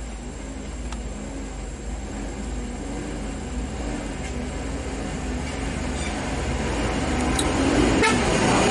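Heavy truck's diesel engine running, a low rumble that grows steadily louder, with a couple of short knocks near the end.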